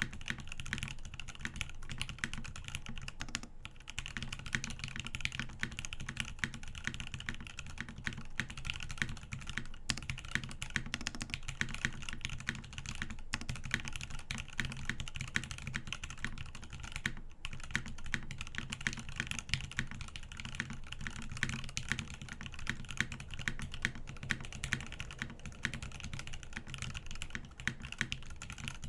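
Fast, continuous typing on a custom mechanical keyboard: lubed Gateron Ink Black linear switches on an aluminum plate in a top-mounted NRD Kaze case, with SAU-profile dye-sub keycaps. The keystrokes run close together with a few short pauses.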